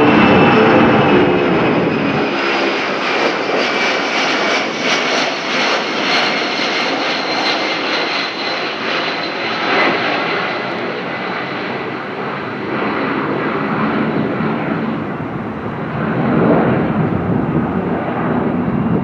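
Twin Pratt & Whitney PW2037 turbofans of a Boeing 757-200 at takeoff power: a loud, steady jet rumble with high whining tones. The whine slowly falls in pitch and the sound eases off gradually, with the deepest rumble dropping away about two seconds in, as the airliner moves away.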